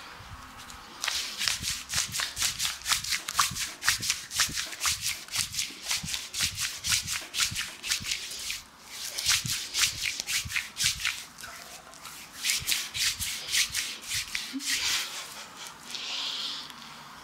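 Brisk rubbing strokes of hands over soap-lathered skin during a foam scrub massage, about four wet, hissy strokes a second. They come in three runs with short breaks between them.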